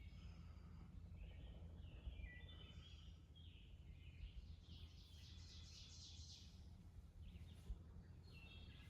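Faint birdsong: several small birds chirping and singing in short phrases, with a denser buzzy trill about five to six seconds in, over a low steady rumble.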